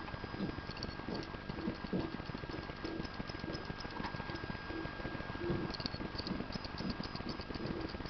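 Opened 120 GB laptop hard drive running with its platter exposed, the read/write head arm seeking with irregular ticks and clicks over a faint steady tone. The ticking comes from the drive failing reads and retrying.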